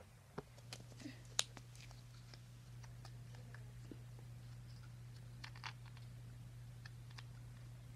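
Pink slime being squeezed and pulled from a plastic tub: faint scattered clicks and small pops, the loudest about a second and a half in, over a low steady hum.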